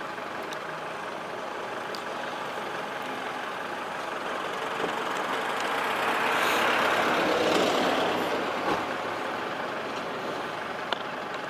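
Steady outdoor background rumble that swells over a few seconds in the middle and fades again, with a couple of sharp clicks near the end.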